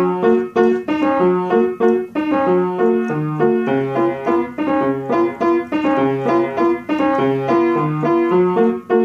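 Upright piano played by a child: a simple melody of short, evenly paced notes over a few lower bass notes, stopping just before the end.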